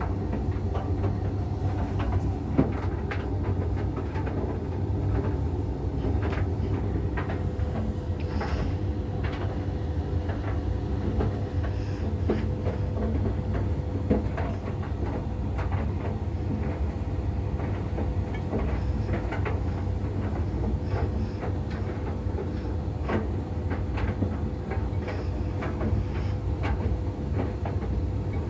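Tumble dryer running: a steady low rumble and hum from the motor and turning drum, with irregular light clicks and knocks as the load tumbles, two a little louder than the rest.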